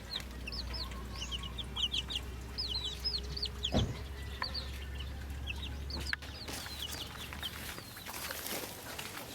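Chickens calling in a flock: many short, high, quickly falling calls one after another, with a low rumble underneath and a single knock about four seconds in.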